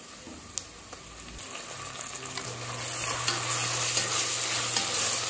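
Sliced onions, mint and green chillies sizzling in hot oil and ghee in a pressure cooker as a wooden spatula stirs in fresh ginger-garlic paste. The sizzle starts faint and grows louder and steadier from about two seconds in.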